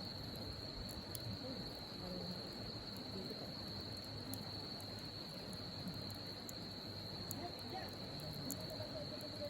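A continuous high-pitched insect trill, unbroken throughout, over scattered small sharp crackles from a burning wood campfire.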